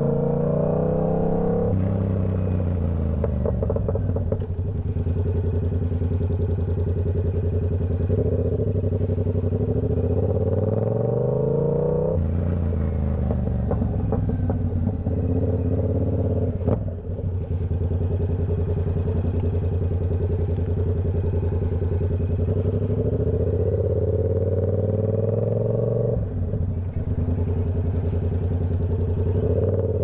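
Yamaha R7's 689 cc parallel-twin engine through a TOCE full-system exhaust, under way: the pitch climbs under acceleration and drops sharply at each upshift, several times, with stretches of steady cruising in between.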